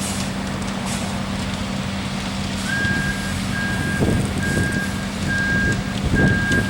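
Concrete mixer truck's diesel engine running. About two and a half seconds in, its backup alarm starts, beeping one high tone a little more than once a second as the truck reverses, and the engine grows louder in the last few seconds.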